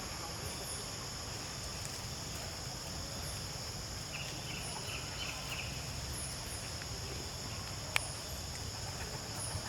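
Steady chorus of insects: several high drones held at once, with a repeating chirp above them, over a low rumble. A brief twittering comes about four seconds in, and a single sharp click about eight seconds in.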